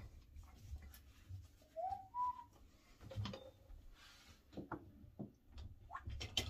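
A short two-note whistle about two seconds in, the first note rising and the second held. A few light knocks and clicks follow, from things being handled at the bathroom counter.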